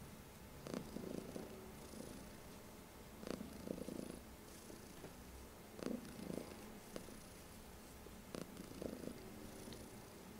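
Domestic cat purring contentedly while being stroked, the purr swelling and easing about every two and a half seconds.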